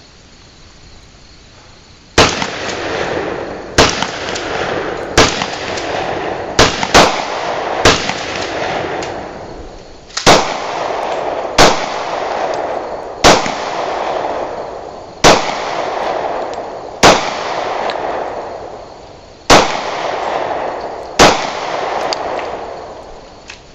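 Glock 27 subcompact .40 S&W pistol firing about a dozen single shots, spaced a second or two apart, each crack followed by a long echo.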